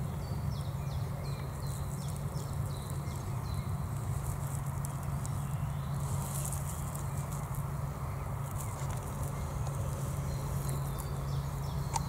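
Outdoor background with a steady low rumble and light rustling. A quick series of short, high, falling chirps comes near the start and again near the end.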